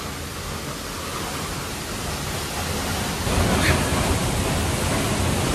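Steady rushing of a tall waterfall heard close up from behind the falling water, getting louder about three seconds in.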